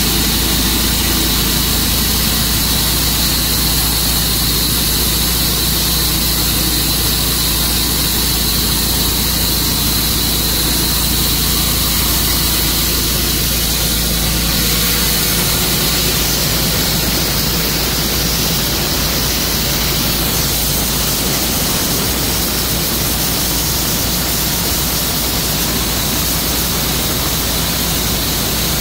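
Tru-Cut sawmill running steadily: a loud engine drone with a steady hiss above it, the sound growing fuller about halfway through.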